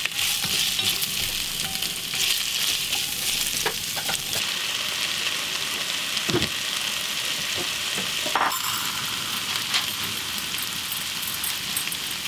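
Chopped vegetables sizzling as they fry in a cooking pot, a steady hiss, with a couple of knocks partway through, as from stirring.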